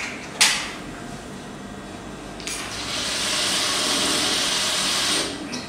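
Brother industrial single-needle lockstitch sewing machine running at speed as fabric is stitched: a steady high whir that starts about two and a half seconds in and stops near the end. A single sharp knock comes about half a second in.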